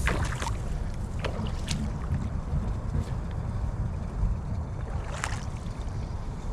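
Wind rumbling on the microphone, with a few short sharp clicks and knocks, the clearest near the start and about five seconds in.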